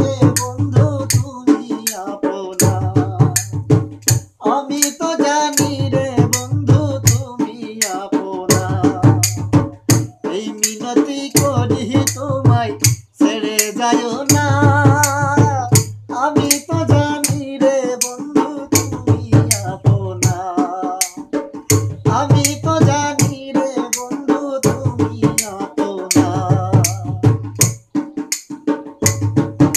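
Bangla Baul folk music: a hand-played barrel drum keeps a fast, steady beat with sharp clicking percussion, under a held melody whose pitch wavers.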